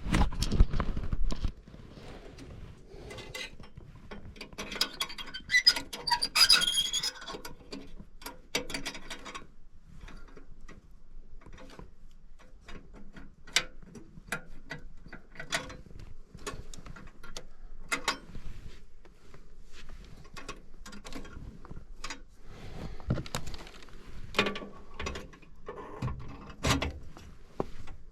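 Scattered clicks, taps and scrapes of tools and metal parts being handled during hands-on work on a gas furnace, with a denser stretch of scraping and squeaking a few seconds in and a few heavier knocks near the end.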